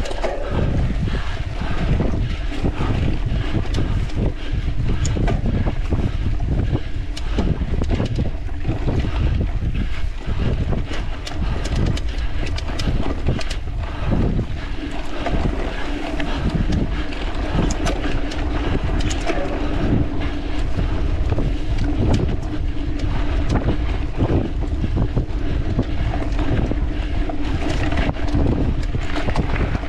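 Wind buffeting an action camera's microphone on a mountain bike in motion, over tyre noise and frequent rattles and clicks from the bike on rough ground. A low steady hum comes in about halfway.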